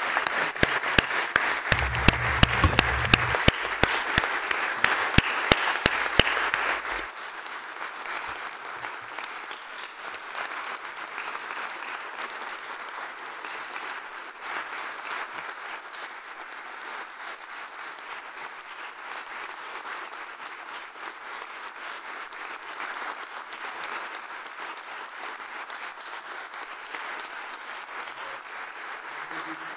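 Audience applauding: loud clapping for about the first seven seconds, then dropping to softer, steady applause.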